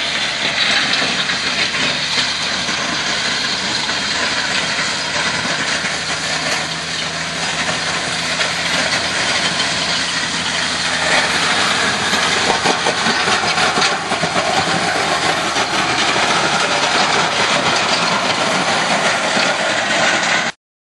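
Plow truck's engine running while its front plow blade scrapes and pushes dirt, a steady loud hissing rush over a low engine note; it cuts off abruptly near the end.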